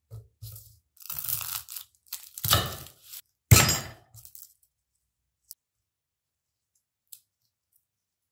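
A garlic bulb being broken apart into cloves by hand on a wooden cutting board: papery skins crackling and cloves snapping off in a run of crunches, the loudest about three and a half seconds in. Two faint clicks follow.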